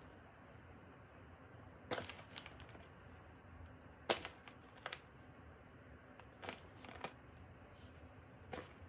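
A hand handling a plastic bag of grated cheese: several short, sharp crinkles of the plastic as it reaches in and grabs cheese, the loudest about four seconds in.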